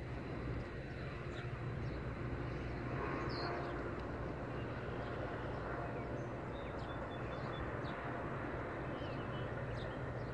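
Steady low outdoor rumble with a few short bird chirps scattered through it.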